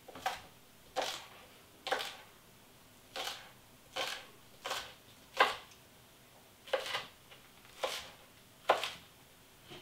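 Chef's knife cutting spring onions into coarse pieces on a wooden cutting board: about eleven separate chops, roughly one a second, each a short knock of the blade on the wood.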